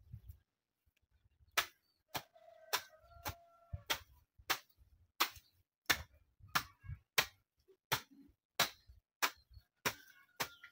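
A hand hoe (jembe) chopping into grassy soil in steady, evenly spaced strokes, about one and a half a second, starting about one and a half seconds in.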